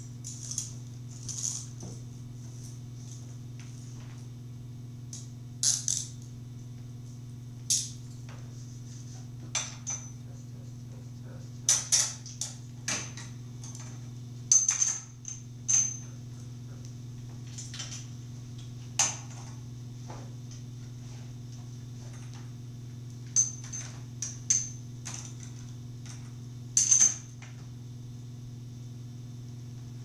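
Heavy metal chain and cuffs clinking and rattling in irregular clusters as they are handled and locked to a metal folding chair, each clink ringing briefly. A steady low hum runs underneath.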